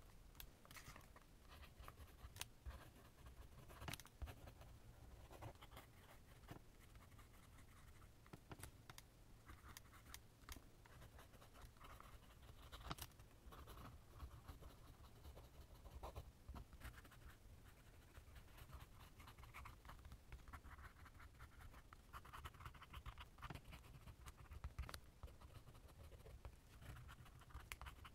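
Lamy fountain pen's steel nib scratching faintly across paper in cursive handwriting, in short strokes with occasional light ticks.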